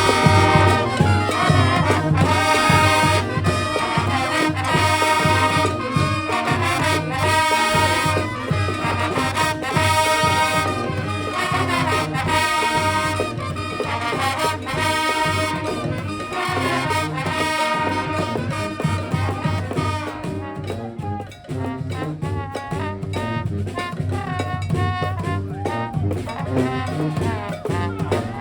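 Live brass band playing an up-tempo tune, horns over a steady drum beat. About twenty seconds in the high horn parts drop away and the playing gets quieter.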